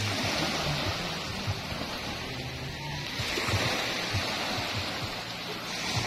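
Small waves washing up onto a sandy beach, the foam hissing over the wet sand and swelling about every three seconds as each wave runs in, with a faint low hum underneath.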